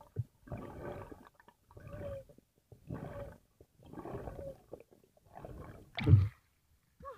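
Muffled underwater rushing in pulses about once a second as a freediver kicks up fast toward the surface, short of air. About six seconds in, a louder burst comes as he breaks the surface.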